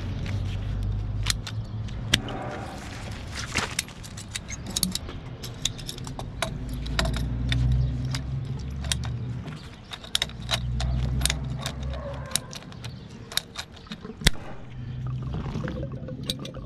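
Irregular sharp metallic clicks and clinks of hand tools on pipe fittings while a small electric booster pump is disconnected from plastic water pipe, with stretches of low rumble.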